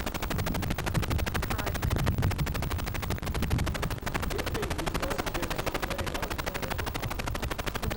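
Faulty recording: the audio is broken up by a fast, even crackle of clicks, about ten a second, like a buzz. Faint voices can be heard underneath.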